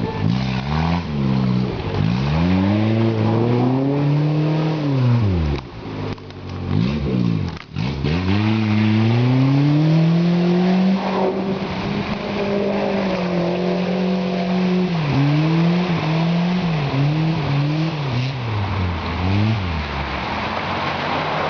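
Suzuki Samurai engine revving hard over and over, pitch climbing and dropping back several times. In the middle it holds high revs for several seconds under load, then rises and falls in quicker, shorter surges.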